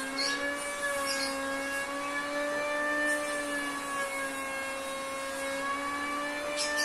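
A motor running steadily with a high whine that wavers slightly in pitch, with a few light clicks near the start and near the end.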